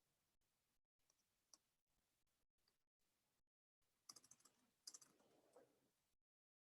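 Near silence with faint computer keyboard clicks: two short clusters of key taps about four and five seconds in.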